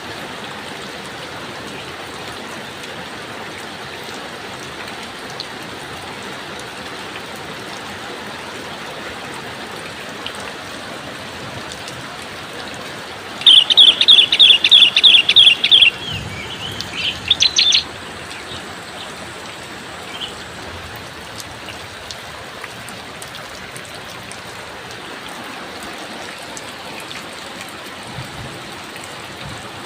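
Steady rain falling, with a bird calling loudly about halfway through: a fast run of about ten high chirps over two and a half seconds, then a few weaker notes.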